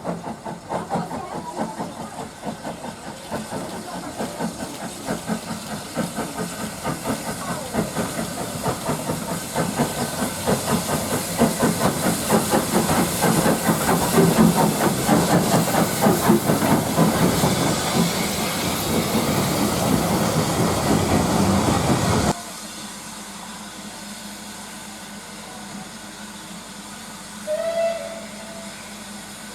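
Steam locomotive working under steam, its rapid exhaust beats and hiss growing steadily louder as it comes closer. About two thirds of the way through the sound cuts off suddenly to a quiet background, with one short high tone near the end.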